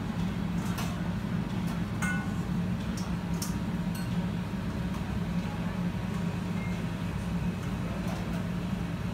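Restaurant room tone: a steady low hum with scattered light clinks and clicks of tableware, several in the first four seconds.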